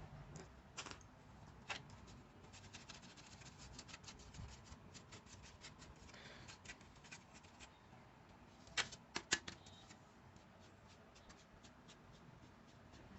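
Faint, irregular light clicks and taps of small objects being handled, with a few sharper clicks about a second in and a quick pair past the middle.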